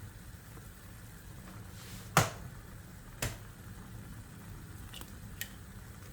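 Two sharp clicks, the first about two seconds in and loudest, then two faint ticks near the end, over a steady low rumble.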